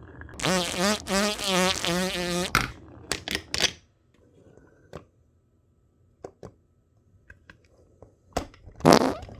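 Marble run: a wavering hum for about two seconds, then a scatter of sharp clicks, with a louder burst of noise near the end.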